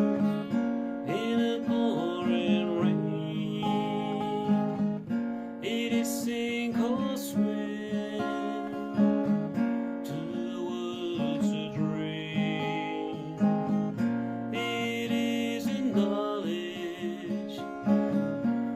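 Acoustic guitar strummed and picked in a slow country-blues song, with a bending, wavering melody line over the chords.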